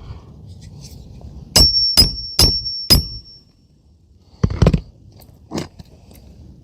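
Hammer driving a roofing nail through an asphalt shingle: four quick ringing metal strikes about half a second apart, then a few duller knocks. The blows are light, just enough to get the nail in.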